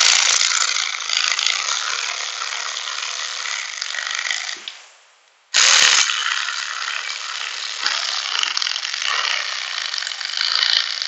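Cordless electric ratchet spinning as it runs 10 mm bolts in, just run up and not tightened. It runs in two bursts, stopping for about a second a little before the middle and then starting again with a loud onset.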